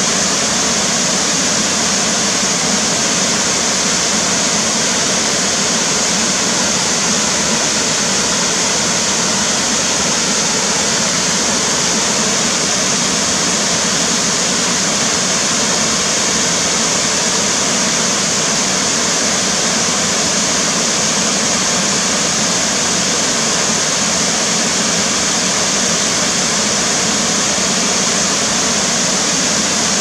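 A river pouring over a series of low stepped waterfalls: a steady, loud rush of water.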